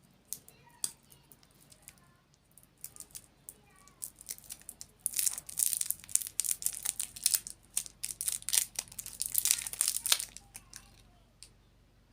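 Crinkling and tearing of a plastic sweets wrapper being handled and opened. A few scattered crackles come first, then about five seconds of dense, loud crinkling that stops abruptly near the end.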